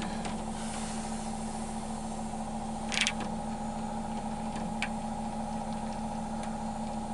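Small clicks of a roller wheel being fitted onto a sliding shower door's metal frame, a short rattle of clicks about three seconds in and a single click near five seconds, over a steady background hum.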